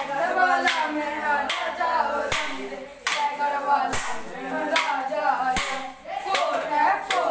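Boys singing a danda nach stick-dance song in chorus while striking wooden sticks together in a steady rhythm, a sharp clack about every half second.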